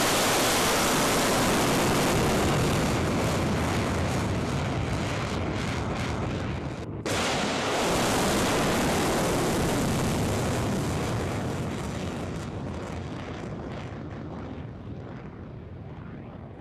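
Rocket motor of a ballistic missile launched from a rail car: a loud rushing noise that cuts out for a moment about seven seconds in, then resumes and fades steadily as the missile climbs away.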